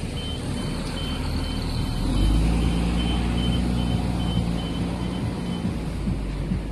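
Road traffic: a heavy vehicle's engine swells into a loud low rumble about two seconds in and runs on, over a high electronic beep repeating about twice a second that stops near the end.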